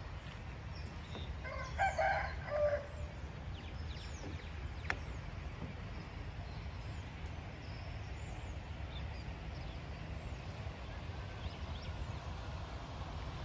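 A rooster crowing once, about two seconds in, its call ending on a lower drawn-out note, over a steady low background noise with small birds chirping now and then.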